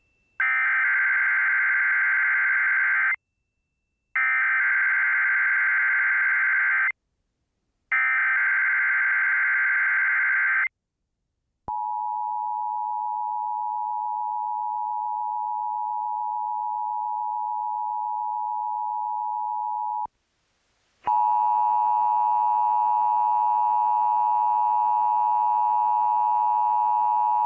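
Emergency Alert System alert from a Sage Digital ENDEC. It opens with three bursts of warbling digital SAME header data, each about three seconds long with about a second's pause between them. Then comes the two-tone EAS attention signal, held steady for about eight seconds. About a second after that, a harsher, buzzy steady tone with many overtones begins.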